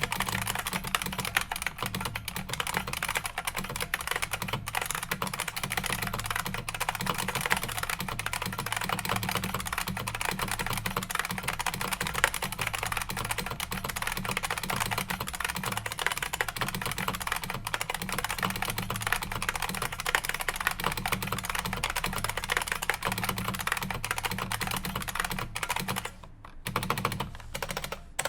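Continuous fast typing on an IBM Model M keyboard, its buckling-spring switches clicking with every keystroke, with a short pause near the end.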